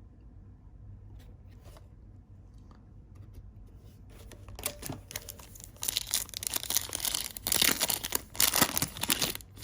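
Foil trading-card pack wrapper being torn open and crinkled. It is quiet at first with a few light handling ticks, then a dense crackling tear starts about halfway through and grows loud toward the end.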